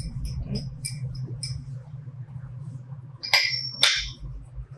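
A metal spoon clinking and scraping against a small glass bowl, a quick run of light clicks, as condensed milk is scooped out, then two louder clinks of a utensil against a stainless steel saucepan a little after three seconds in.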